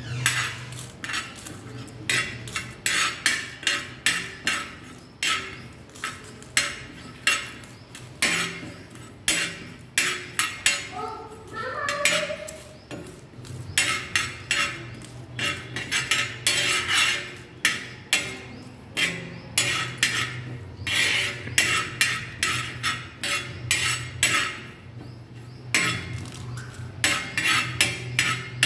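A metal spoon scraping and clinking across a flat tawa in quick, repeated strokes, about one or two a second, while stirring cumin seeds and a dried red chilli to dry-roast them.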